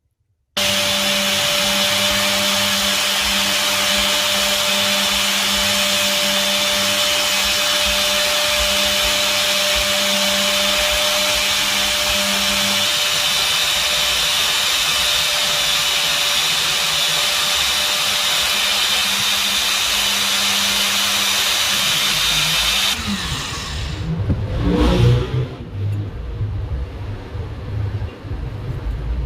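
An electric power tool running steadily, a constant hum under a loud hiss, switching on abruptly. About 23 seconds in it gives way to a lower, uneven rumble with a brief sweep in pitch.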